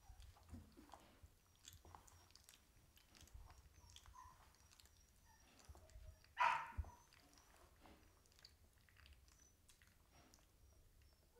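Faint mouth and movement sounds from 17-day-old Malinois puppies and their mother: soft scattered clicks and smacking, with one short louder sound about six and a half seconds in.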